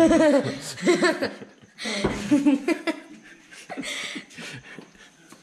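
A boy laughing in several short bursts, dying away in the second half.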